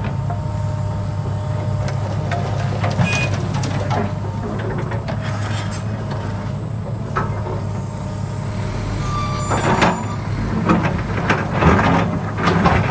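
Heavy diesel construction machinery running steadily with a low engine hum, with a run of metallic clanks and knocks in the second half.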